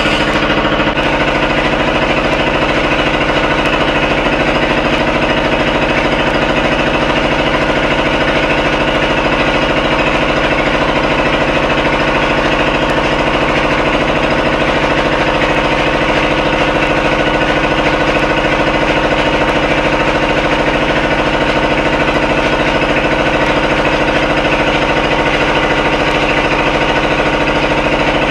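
An engine running steadily and loudly with a fast, even knocking pulse; its tone shifts slightly about a second in.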